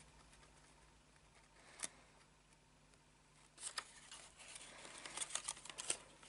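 Faint handling of folded, pleated paper: a single tick about two seconds in, then a run of small crackles and clicks from about halfway on as the paper pleats are pressed together.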